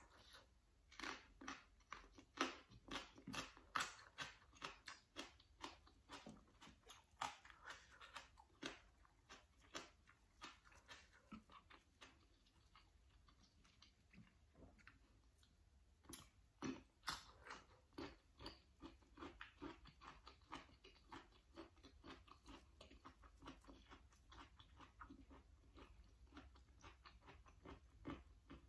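Close-miked chewing of crisp vegetables eaten with chili dip: a fast run of crunches through the first ten seconds, two loud crunches around the middle, then softer, lighter chewing.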